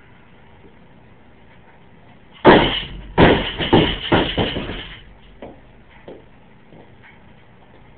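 Loaded barbell dropped from overhead onto the floor after a snatch: a loud crash about two and a half seconds in, then the bar bounces and the plates clank several more times, each hit quieter, settling after a couple of seconds.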